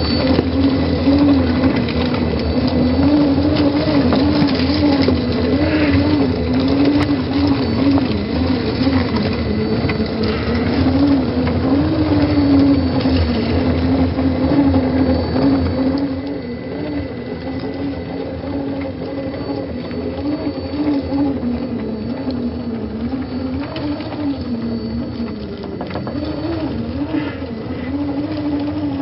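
Electric motor and gearbox of a 1/10-scale Xtra Speed D110 RC crawler whining as it creeps over rock, the pitch rising and falling with the throttle. It gets quieter about halfway through.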